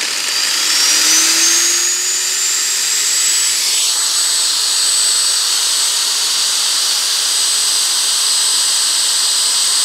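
Electric angle grinder running on mains power, its motor spinning up with a whine that rises in pitch over the first three seconds or so, then holding a steady high whine.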